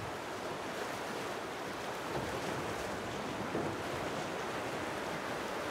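Whitewater rapids rushing steadily past a drift boat as it runs a chute.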